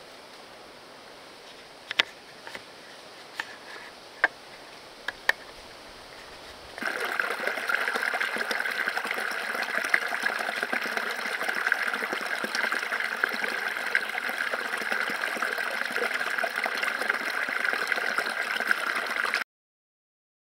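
Water trickling and gurgling between rocks in a small creek. For the first seven seconds or so it is a faint steady hiss with a few sharp clicks; then it turns suddenly to a louder, steady close-up trickle, which cuts off near the end.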